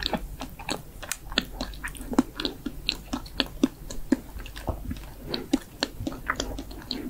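Close-miked wet mouth sounds: irregular smacking and clicking noises, several a second, made to mimic chewing and biting.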